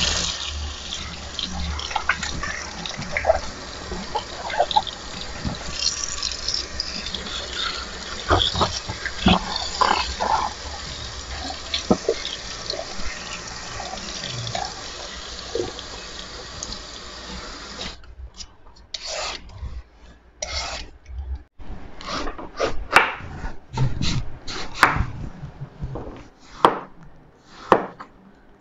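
Kitchen tap running into a stainless steel sink as vegetables are rinsed and rubbed under the stream. About 18 s in, the running water stops and a knife chops vegetables on a wooden cutting board in a series of sharp knocks.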